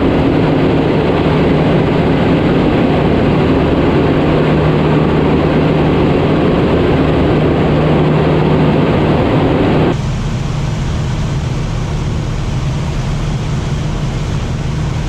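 Cessna 152's four-cylinder Lycoming engine and propeller droning steadily in the cockpit in cruise flight, with a low hum. About ten seconds in, the sound suddenly turns quieter and duller.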